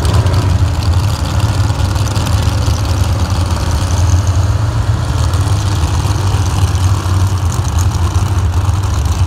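Engines idling after a truck pull, under a heavy, steady low rumble.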